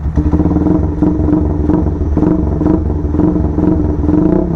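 Motorstar Z200 200cc motorcycle engine running steadily while parked, its exhaust note through twin chrome pipes sounding crisp.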